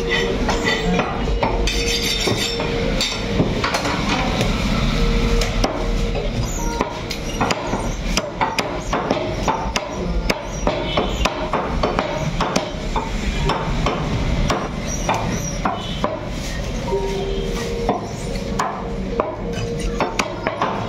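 Butcher's knife chopping raw chicken on a wooden log block: repeated, irregular knocks of the blade striking through meat and bone into the wood.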